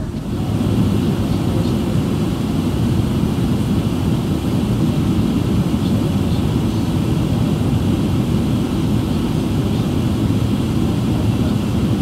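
Steady low rumble of an Airbus A380's engines and airframe heard from inside the passenger cabin while the airliner taxis.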